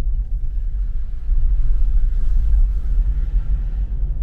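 Car driving on a rough unpaved road, heard from inside: a loud, steady low rumble of tyres and engine.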